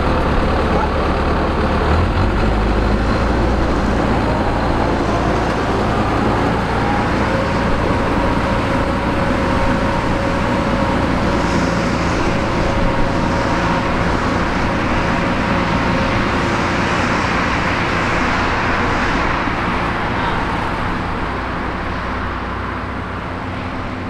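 A Cheetah rice combine harvester running steadily, its engine and machinery giving a constant drone with a whine that rises slightly in pitch about six seconds in. The sound slowly fades over the last few seconds as the machine moves off.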